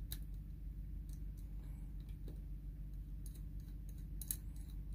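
Faint scattered light clicks and ticks of small screws being turned by finger into a metal plate, more frequent near the end with one sharper click, over a steady low hum.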